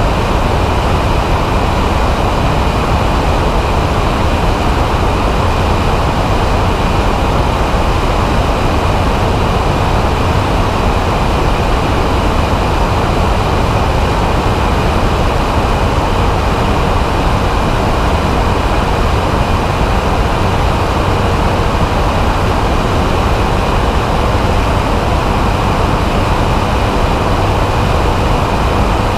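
Weight-shift microlight trike in level flight: its engine and pusher propeller drone steadily under a heavy rush of wind over the wing-mounted microphone.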